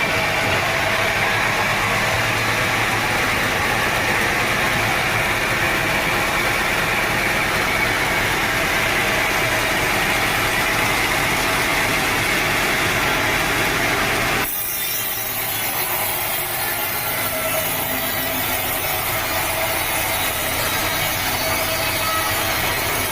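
Sawmill saw cutting through a teak log, giving a steady, dense cutting noise. About two-thirds of the way through, the sound changes abruptly and becomes thinner and hissier.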